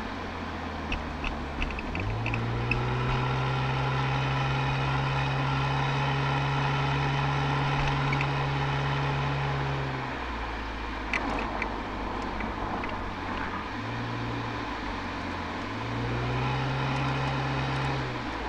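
Toyota Altezza's 1G-FE straight-six heard at the tailpipe through an Apexi aftermarket exhaust. The note climbs about two seconds in and holds steady under throttle, then drops off around ten seconds as the throttle closes. It comes back in a short burst around fourteen seconds and a longer pull from about sixteen seconds, falling away just before the end.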